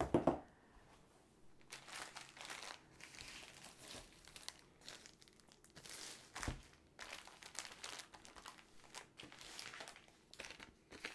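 Plastic packaging crinkling and rustling as the plastic-sleeved rolled canvas tube and bagged packets of drills are handled, with one soft knock about six and a half seconds in.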